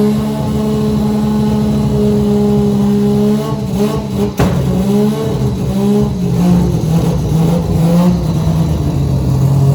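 Car engine held at a steady pitch, then dropping and revving up in several short rising pulls with brief drops between them, like an accelerating car shifting through gears.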